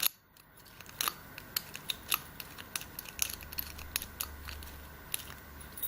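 Lock pick and tension bar working in the keyway of a Brinks padlock: small, irregular metallic clicks and scrapes as the pick is drawn across the pins.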